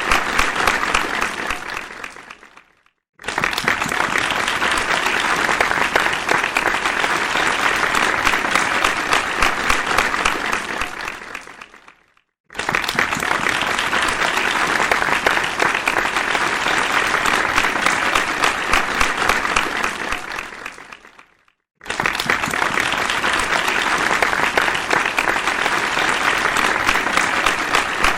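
Crowd applauding, a dense steady clapping that fades away and breaks off into a brief silence three times, each time starting again suddenly at full strength, about every nine seconds.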